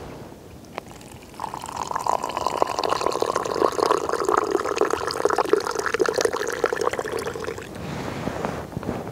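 Hot water being poured into a cup for herb tea: a steady pour that starts about a second and a half in and runs about six seconds before stopping.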